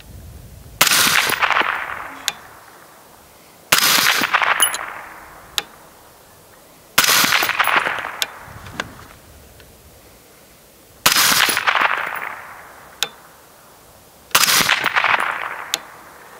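Five slow, evenly spaced shots from a suppressed Mk 12 rifle with an Otter Creek Labs OCM5 suppressor, firing 5.56 mm XM193. Each shot is a sharp report with a short decaying tail. Most are followed about one and a half to two seconds later by a faint short ping.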